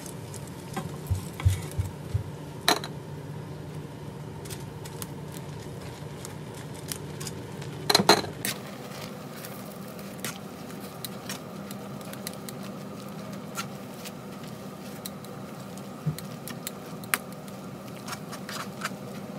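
Metal tongs and a stirring utensil clicking, knocking and scraping against a pan as noodles are tossed and stirred in simmering sauce, over a steady low hum. The loudest clatter comes about eight seconds in.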